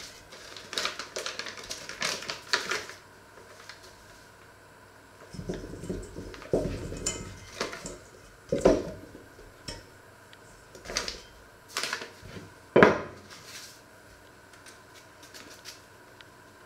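Hands working dough in a stainless steel mixing bowl and handling a paper flour bag: irregular scraping, rustling and clattering against the metal bowl, with a few low thuds. Several separate sharp knocks follow, the loudest near the end.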